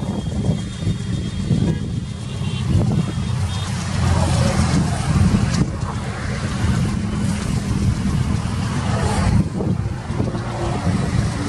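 Long diesel-hauled express train of passenger coaches rolling past at a distance: a steady low rumble that goes on without a break.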